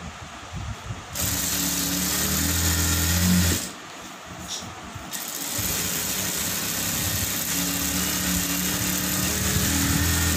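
Electric sewing machine running as it stitches a seam. It starts about a second in, stops for a second or two around four seconds in, then runs again steadily.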